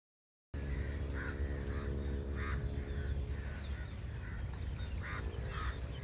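Birds calling in short separate calls a few times, over a steady low hum. The sound cuts in abruptly about half a second in.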